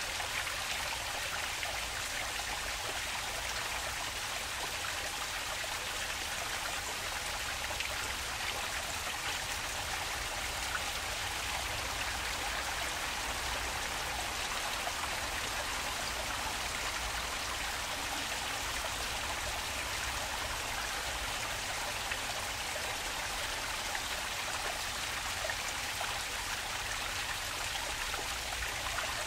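Water flowing steadily, an even rushing hiss with no breaks. A faint low rumble runs underneath.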